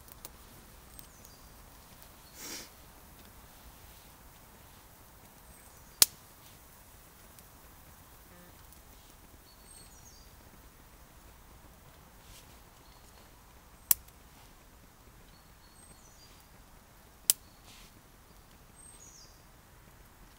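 Three loud, sharp cracks from small twigs and a wood fire burning in a folding twig stove, with a brief soft rushing noise about two and a half seconds in. Faint high bird chirps repeat every few seconds behind it.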